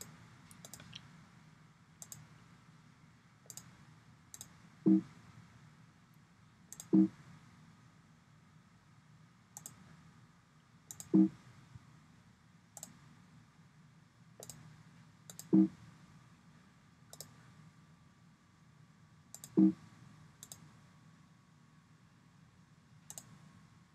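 Computer mouse clicks while working through file save dialogs: light, sharp clicks every second or two, with five louder, duller clicks spaced a few seconds apart.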